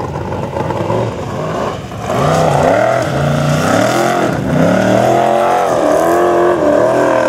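Formula Offroad unlimited-class buggy's engine revving hard in repeated rising and falling surges, louder from about two seconds in, as the driver works the throttle climbing a steep sand slope with the wheels spinning.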